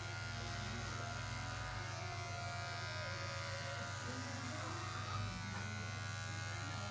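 Electric hair clipper running with a steady buzz as it is pushed through hair close to the scalp.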